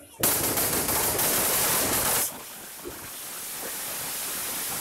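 Fireworks packed inside a burning effigy hissing as they spray sparks. A loud rush of hiss starts abruptly, drops to a quieter steady hiss about two seconds in, and a few faint pops come through it.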